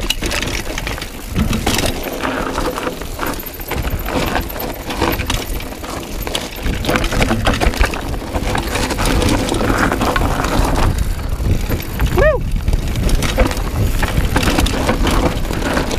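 Mountain bike riding down a rough rocky gravel trail: tyres crunching over loose stones and the bike rattling over bumps in a constant clatter of small knocks, with wind buffeting the microphone. A brief pitched squeal or cry sounds about twelve seconds in.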